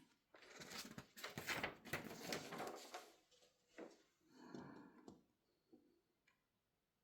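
Handling and unpacking noises: rustling packaging for a few seconds, then a few separate clicks and light knocks that die away to near silence.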